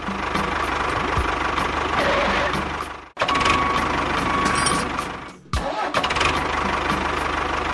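Tractor engine running steadily with a regular beat, cutting out briefly about three seconds in and again about five and a half seconds in.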